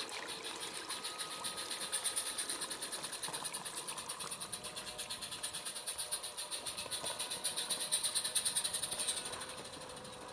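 Garden-railway diesel locomotive hauling a short train of wagons along the track: a fast, even rhythmic clatter with a high whine on top. It grows louder about two seconds in and again around eight seconds, then fades as the train moves away.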